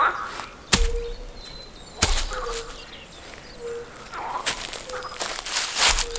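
Two sharp snaps or knocks, then a stretch of close rustling and crunching near the end, with a short repeated call in the background that is probably a bird.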